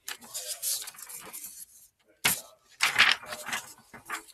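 Paper rustling in a few bursts, as sheets of notes are handled, with a sharp tap about two seconds in.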